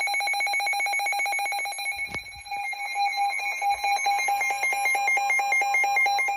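Electronic alert alarm of a weather-alert radio, a rapid trilling beep that shifts about two and a half seconds in to a stepped, warbling pattern; it signals that a new warning is about to be broadcast.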